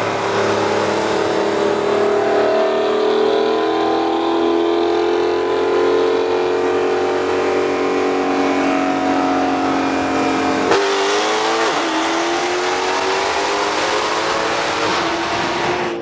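Car engine at full throttle, its note climbing steadily through a long pull in a tall gear. About eleven seconds in the pitch breaks and drops with a gearshift, then climbs again.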